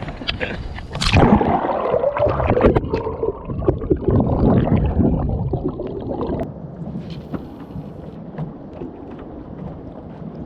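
Water splashing and sloshing close to the microphone, starting sharply about a second in and easing off after about six seconds into a quieter wash with scattered light ticks.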